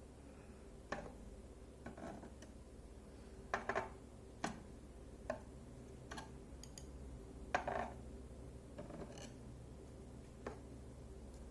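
Light, irregular clicks and taps of small metal lock pins and springs being handled and pushed about on a hard surface, a dozen or so scattered knocks.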